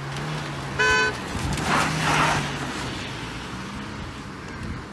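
A single short car-horn toot about a second in, followed by a brief rush of noise, over a low steady engine hum.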